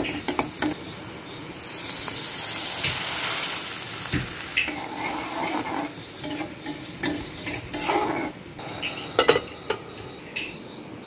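Metal spatula scraping and clacking against a metal kadai while onions and green chillies fry in oil. The sizzling swells into a loud hiss from about two to four seconds in, as the pan fills with liquid over the hot oil.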